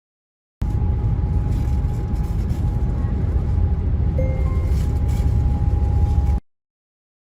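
Steady road and wind noise inside a Volvo S90's cabin at highway speed on smooth asphalt: a low tyre rumble with hiss above it and a faint steady high tone. It starts about half a second in and cuts off suddenly near the end.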